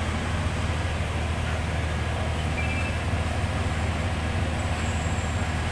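Heavy diesel engine running steadily with a low, even drone, as from the pile-driving rig or its hauling truck during loading.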